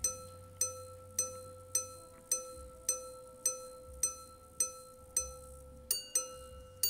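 Minute repeater wristwatch chiming the time with hammers on its gongs. A run of single low strikes about every 0.6 s counts the hours. Near the end come paired high-and-low strikes, the start of the quarter-hours.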